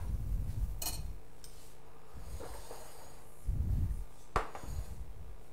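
Quiet handling at a kitchen counter: cutlery clinking against plates twice, sharp and brief, amid low dull knocks as plates and utensils are picked up and moved.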